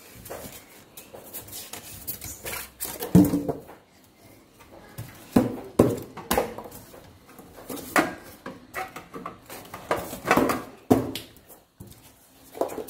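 Stainless steel tray and the metal body of an electric dough press knocking and clanking as the tray is handled out of its box and set onto the machine: a series of separate clanks and knocks with handling noise between them.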